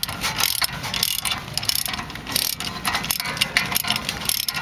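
Hand socket ratchet clicking in fast runs with short pauses, driving in the rear brake caliper bracket bolts.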